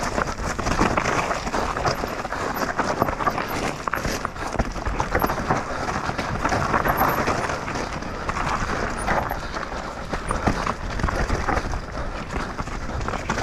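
Mountain bike moving over rough, stony trail: a dense clatter of tyres, chain and frame knocking, over a steady low rumble.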